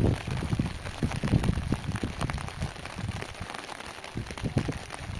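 Rain falling, with irregular low gusts of wind noise on the microphone that ease off briefly about three seconds in.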